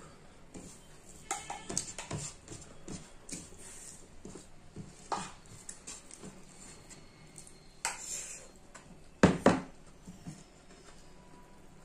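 Eating sounds at a table: a metal spoon clinking and scraping in bowls, and plastic plates and bowls knocking. Scattered small clicks throughout, with a louder pair of knocks about nine seconds in.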